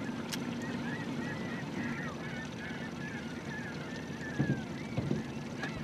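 Many birds calling at once, with overlapping short chirps and whistles, over a low steady hum. Two dull thumps come about four and five seconds in.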